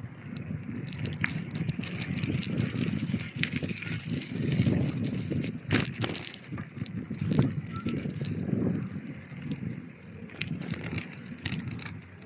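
Bicycle being ridden: a fluctuating low rumble with many small, sharp clicks and rattles scattered throughout.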